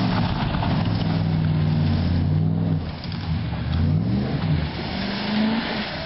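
Pickup truck engines revving hard under load as the trucks strain on chains hooked to a house. The revs climb and hold, drop about three seconds in, then climb again twice.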